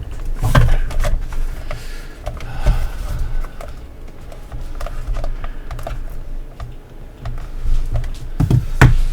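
Plastic pieces of a NECA Pillar of Souls figure base being pushed and snapped together: a run of irregular clicks and knocks, with two louder knocks near the end. This is a lot of clicking that does not feel right, the sign of parts that are not seating properly.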